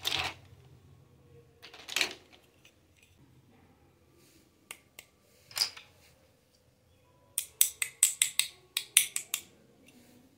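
Small hard-plastic toy kitchen pieces being picked up and set down on a table: a few separate plastic knocks, then near the end a quick run of about a dozen sharp clicks and taps.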